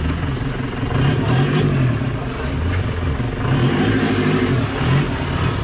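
Off-road Willys-style jeep engine revving hard under load as the jeep climbs a muddy, rocky rut, the revs rising and falling several times. A faint high whistle sweeps upward twice.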